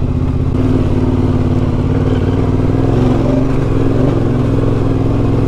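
Yamaha Ténéré 700's parallel-twin engine running steadily as the bike is ridden along a dirt track.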